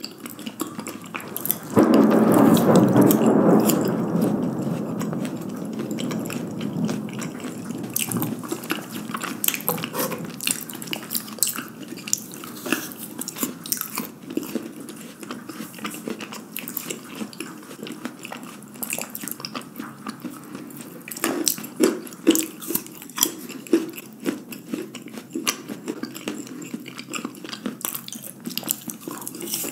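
Close-miked ASMR eating, with bites and chewing heard as many irregular crisp clicks, several a second. A loud hiss comes in about two seconds in and fades over the next few seconds.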